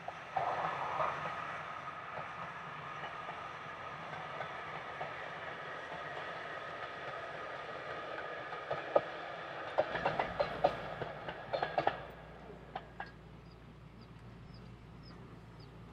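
A train running on the line, with a run of sharp clicks and clanks about ten seconds in, after which it grows quieter.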